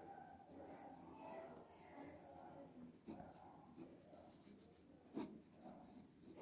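Pencil-like drawing strokes scratching on paper: short scraping strokes at irregular intervals, the loudest about five seconds in.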